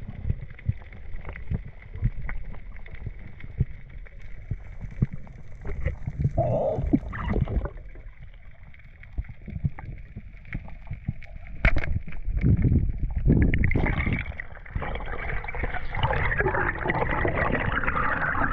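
Muffled underwater sound heard through a camera housing during a freedive: a steady low rumble of moving water with scattered sharp clicks and crackles, a short gurgle partway through, and a louder rush of water over the last third as the diver swims up toward the surface.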